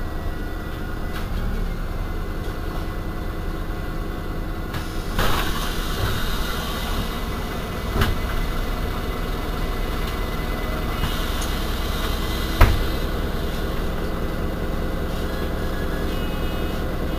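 Heuliez GX 137 city bus engine running steadily. A hiss comes about five seconds in, a click a few seconds later, and a sharp knock, the loudest sound, about two-thirds of the way through.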